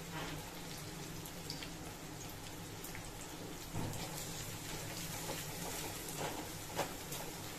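Julienned carrots, garlic and spring-onion whites sizzling in hot oil in a steel wok: a steady crackle of many small pops. About four seconds in, a silicone spatula starts stirring them with a soft knock against the pan, and there is another sharp tick near the end.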